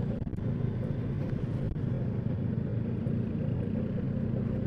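Yamaha NMAX scooter riding along, a steady low rumble of engine and road noise.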